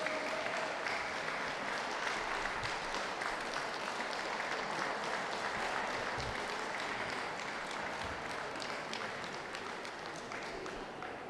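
Audience applauding, a dense patter of many hands clapping that dies away over the last few seconds.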